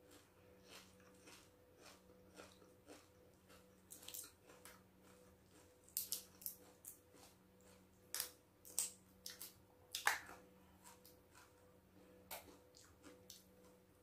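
Close-up eating sounds of cooked sea crab: shell being cracked and picked apart by hand, with chewing and lip smacks, a string of short sharp clicks and crunches that grows denser and louder about halfway through.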